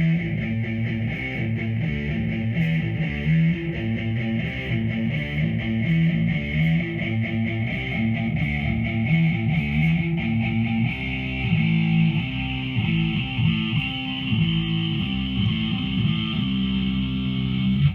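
Electric guitar played through a Behringer V-AMP PRO amp modeler on a distorted preset, riffing on low notes, cutting off right at the end.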